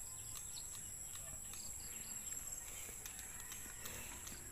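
Faint rural ambience: a steady high-pitched insect drone, with a few short, faint chirps scattered through it.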